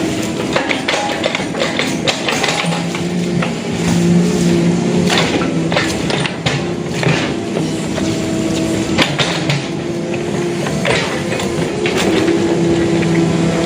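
Excavator working in deep mud: its diesel engine runs steadily, its pitch holding and fading as the load changes, with repeated sharp metal clanks and knocks throughout.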